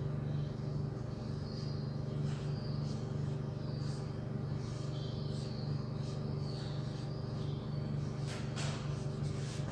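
Whiteboard marker writing in short, faint strokes over a steady low hum.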